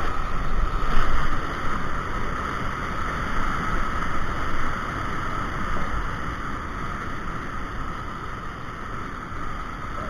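Whitewater rapids pouring over a rock ledge: a loud, steady rush of churning water heard close up, swelling about a second in and easing slightly later.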